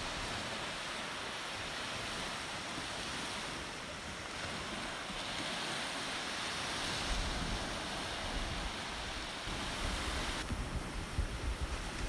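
Small sea waves breaking and washing up on a sand beach in a steady surf wash. Wind gusts buffet the microphone in a low rumble during the second half.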